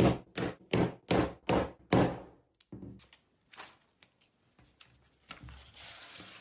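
Repeated thunks of a rod-shaped tool being struck down through paper onto a hard surface, about two and a half a second, then fainter scattered taps and a soft rustle near the end.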